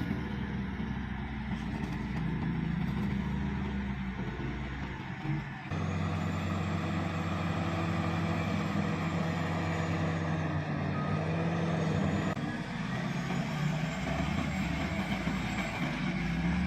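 Heavy diesel machinery engines running steadily during the recovery of a truck stuck in mud, with an abrupt change in the sound about six seconds in.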